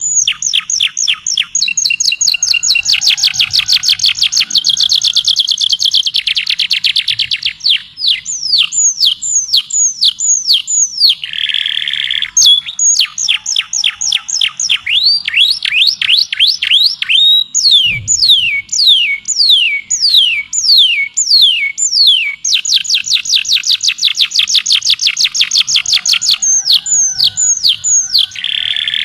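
Songbird singing a long continuous song of repeated high whistled notes that sweep downward, going from fast rolling trills of many notes a second to slower series of about three notes a second and back, with a few short buzzier phrases between.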